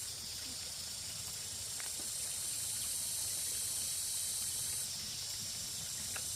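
Steady, high-pitched chorus of insects, with a couple of faint clicks.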